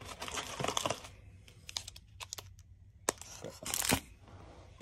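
Foil hockey card packs being handled and set down on a wooden table: a crinkly rustle of the wrappers in the first second, a few light clicks and taps, then a sharper click and a louder crinkle a little after three seconds.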